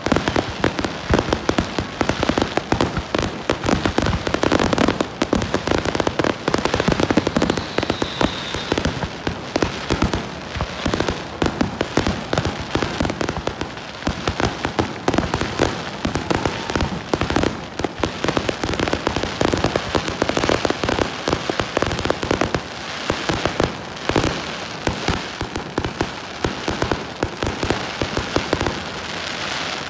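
Aerial fireworks going off in a dense, rapid barrage of bangs and crackling, with barely a gap between bursts, thinning out just at the end.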